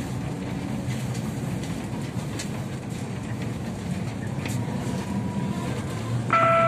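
Interior running noise of a Kyiv-12.03 trolleybus under way: a steady low rumble with a few faint clicks. Near the end an electronic chime of several steady tones sounds, the signal that comes before the next stop is announced.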